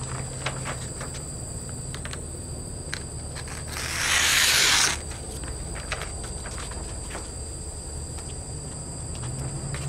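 A freshly hand-sharpened wakizashi blade slicing down through a sheet of paper: one papery rasp lasting about a second, near the middle.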